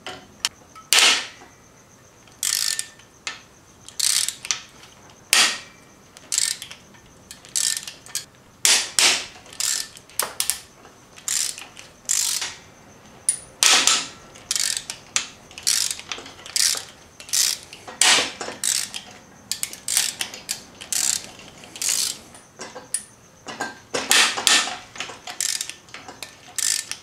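Hand ratchet clicking in short, repeated bursts on its return strokes as the cylinder head bolts of a Subaru EJ25 engine are loosened with a 14 mm 12-point socket.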